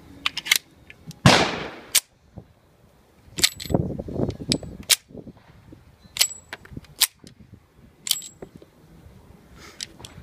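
Slide of a custom 1911 pistol racked by hand: a series of sharp metal clacks, the loudest about a second in, as an empty shell casing is fed into the chamber. This tests the feed: the pistol will feed even a spent casing.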